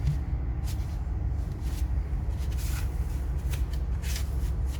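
Short rustles and light clicks of hands handling a USB Type-C cable and its packaging, about six separate handling noises, over a steady low hum.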